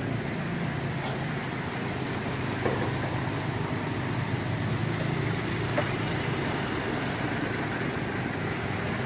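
Motorbikes and a heavy dump truck driving through shallow floodwater on a road. A steady low engine hum runs under the wash of water from the tyres.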